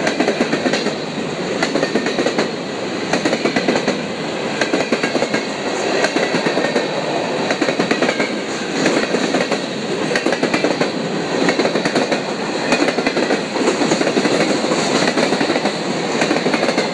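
Freight cars rolling past close by, their steel wheels clattering over rail joints in repeated groups of clacks as each set of wheels crosses, with a faint high-pitched ring above.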